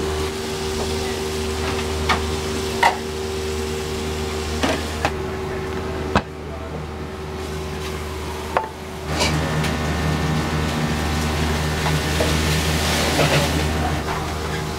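Restaurant kitchen at work: a steady hum of kitchen equipment, with scattered clinks and knocks of dishes and utensils and a brief hiss a little before the end.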